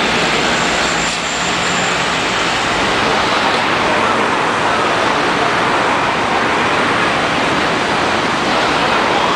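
Steady street traffic noise at a busy city intersection: a loud, even rush of passing vehicles, with a coach's engine faintly under it in the first couple of seconds.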